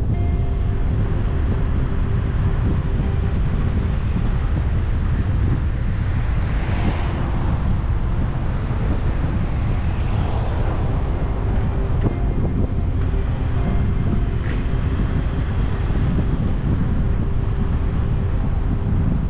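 Strong wind buffeting the microphone as a steady low rumble, with faint steady humming tones under it and two brief swells of rushing noise.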